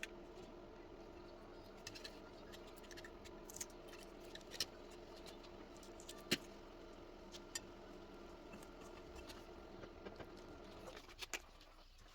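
A faint, steady hum made of several fixed tones, which cuts off about eleven seconds in, with scattered light clicks and taps of small objects being handled. The loudest click comes about six seconds in.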